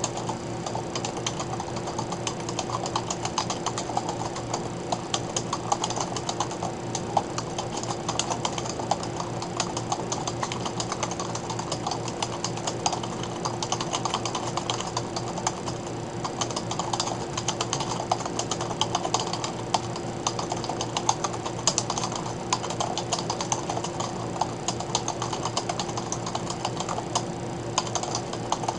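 Continuous fast typing on a computer keyboard, rapid irregular key clicks, over a steady low electrical hum.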